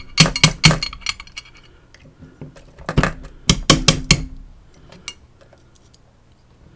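Small metal lock parts clinking: pins of an Elzett Seclox dimple lock cylinder being handled and taken out during disassembly. There are two quick clusters of sharp clicks, one at the start and another about three seconds in.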